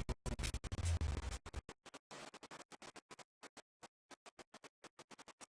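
Choppy, stuttering music-like sound broken into rapid on-off fragments, loudest in the first second and a half, then thinning out into sparse short blips.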